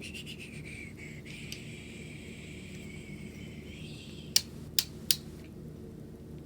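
A new tripod being handled: a thin, wavering scraping squeak for about four seconds, then three sharp clicks in quick succession over a steady low hum.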